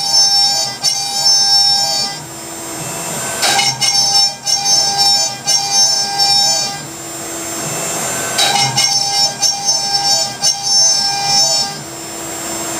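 Laguna IQ CNC router spindle cutting 3/4-inch holes in plywood, with the dust collector running under it. The high whining cut comes in three cycles of about three seconds each, with short quieter gaps between them, one for each hole.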